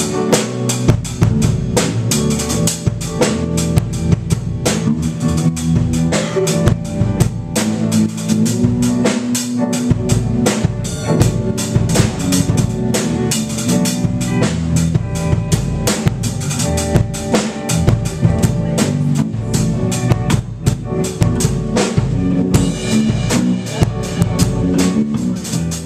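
Band music led by a drum kit keeping a fast, steady beat, with bass guitar notes underneath.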